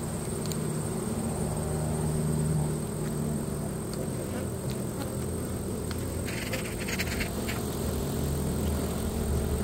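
Honey bees humming over an open hive box, a steady low drone. About six to seven seconds in come a few short clicks and scrapes of wooden hive parts being handled.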